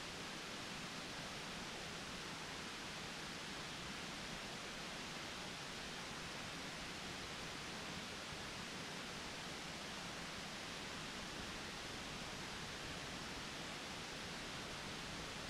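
Steady faint hiss with no distinct sounds in it.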